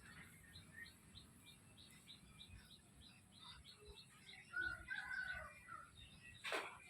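Chickens calling: a run of short high chirps, about three a second, then louder clucking calls about two-thirds through. A single sharp swish or click comes near the end.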